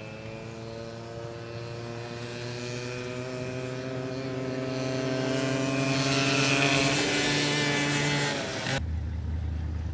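Small youth ATV engines accelerating hard down a dirt drag strip: the engine note climbs steadily in pitch and grows louder, peaking as the quads pass. About nine seconds in it cuts off sharply and is replaced by a lower, steady engine hum.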